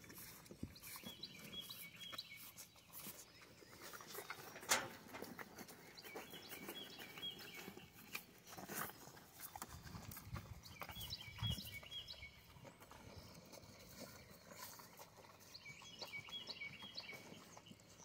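Black cattle licking and eating feed out of a plastic tub: wet licking and chewing with scattered clicks and knocks against the tub, the sharpest knock about five seconds in. A short high twittering phrase repeats about every five seconds in the background.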